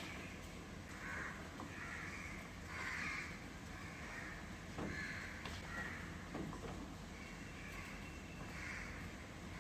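Crows cawing repeatedly, a harsh call about every second, over a steady low background hum.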